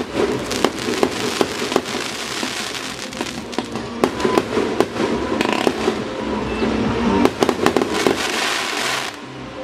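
Aerial fireworks firing and bursting in quick succession, with many sharp bangs and crackling stars, stopping about nine seconds in.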